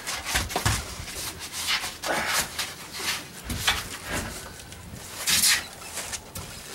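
A large plywood deck sheet and a foam block being shifted around inside a fibreglass boat hull, giving an irregular run of scraping, rubbing and knocking. The longest, loudest scrape comes about five and a half seconds in.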